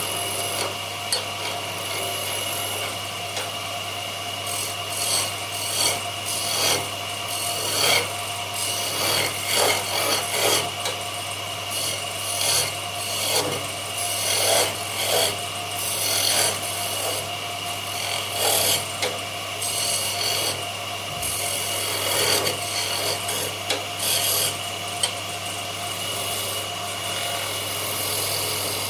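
Wood being worked by hand: irregular scraping and rubbing strokes, like rasping or sanding, over a steady hum.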